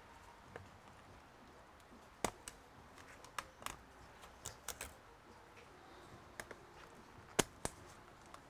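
Scattered sharp clicks and taps of a laptop's plastic casing and parts being handled and pried apart during disassembly, about a dozen in all. The loudest comes near the end.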